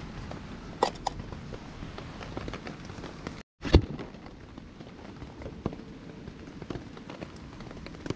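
Steady patter of rain on a tarp, with a couple of light metallic clicks about a second in from a titanium mug being picked up, and a louder handling thump just under four seconds in.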